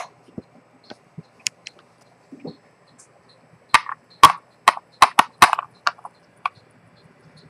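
Sharp clicks and taps of small metal tools and parts being handled during repair of a vintage Rolex 6694 watch. A few single clicks come first, then a quick run of about eight louder clicks between about four and six seconds in.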